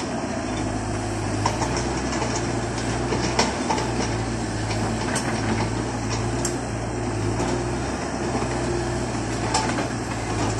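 Diesel engines of tracked excavators running steadily, with a few sharp metallic clanks from the working machines.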